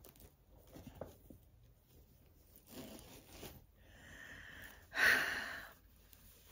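Rustling of cross-stitch fabric pieces and their bags being handled, in several short bursts, the loudest about five seconds in.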